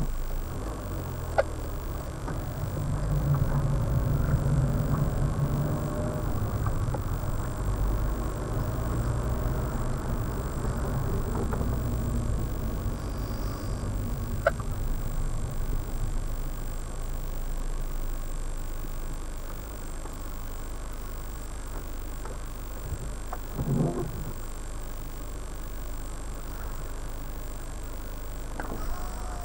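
Car engine running at low speed with road rumble, heard from inside the cabin, as the car drives slowly and turns. A few faint clicks, and a short thump near the end.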